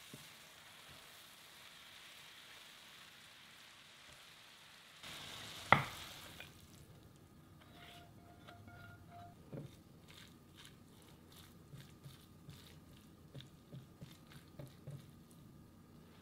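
Shredded vegetables and glass noodles sizzling in a frying pan, a steady hiss that swells briefly about five seconds in and then stops. A sharp knock near the middle, then light clicks and soft scrapes as the mixture is slid from the pan onto a plate and spread out.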